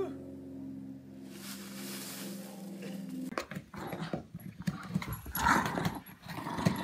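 A small puppy nosing, pawing and scratching at a cardboard box on carpet: a busy run of quick taps, scrapes and rustles that starts about three seconds in. Before that there is a steady low hum.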